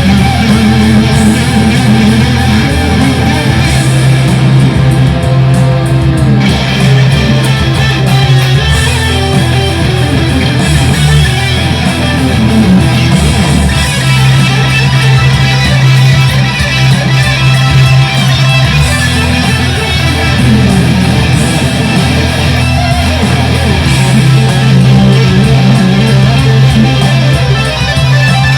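Fender Stratocaster electric guitar played through a Boss Katana amplifier, improvising, with held low notes under a dense, full-range guitar tone.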